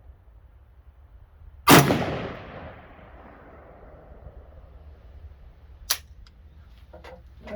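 A single AR-15 rifle shot with a long echo dying away over about a second. A fainter sharp crack follows about four seconds later, and a few light clicks come near the end.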